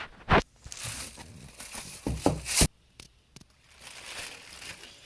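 Packaging being handled as a model is lifted out of its box: rustling and crinkling, with a few sharp knocks, the loudest of them about two seconds in. After a short pause the rustling starts again.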